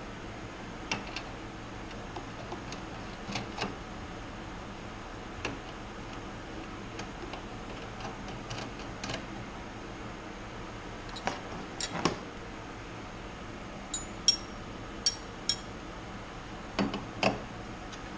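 Small metal fuel-system fittings and hand tools clicking and clinking as they are handled and fitted, with a few sharper ringing metallic clinks in the last third. A steady low hum lies underneath.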